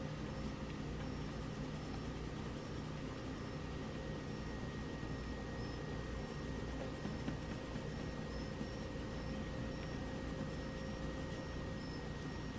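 Graphite pencil shading on drawing paper: faint, steady scratching, with a faint steady hum beneath it.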